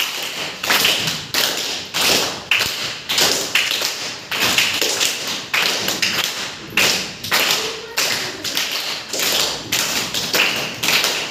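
A class of schoolchildren clapping together in unison, a steady rhythm of roughly two claps a second.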